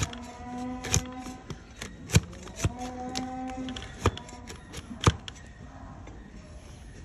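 A long-handled hoof-trimming blade paring a donkey's hoof horn, pressed down against a wooden stool: crunching cuts with sharp knocks about once a second. The strokes stop about five seconds in.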